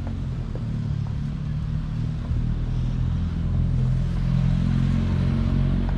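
A motor vehicle's engine running, a low steady rumble that grows louder about two seconds in.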